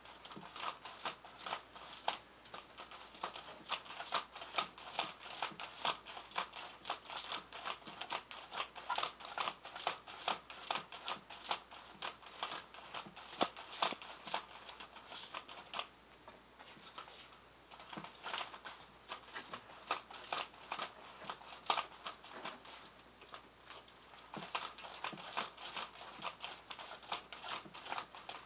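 A cat batting at horizontal window blinds with its paws, the slats clattering in rapid, irregular clicks, quite loud, with a short lull a little past halfway.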